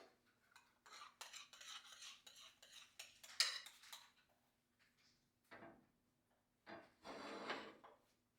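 Cutlery clinking and scraping against dishes: a quick run of knocks and scrapes with one sharp clink about three and a half seconds in, then two short scrapes and a longer stirring scrape near the end.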